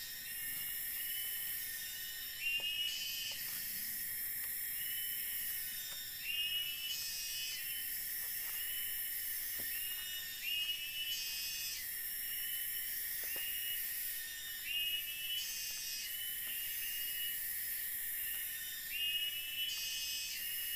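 A high-pitched insect chorus from the surrounding forest: a steady buzzing drone, with a louder rising call repeating about every four seconds. A few faint knocks sound underneath.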